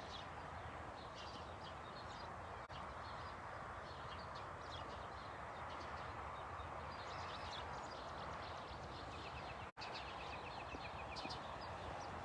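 Many small birds chirping in quick, repeated high notes over a steady outdoor background hiss. The sound cuts out for an instant about ten seconds in.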